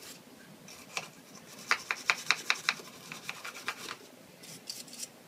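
Toothbrush scrubbing a small plastic action-figure part against a washcloth, stripping paint that a lacquer-thinner and alcohol bath has loosened. The strokes come in bursts, a brisk run of about five a second in the middle and lighter strokes near the end.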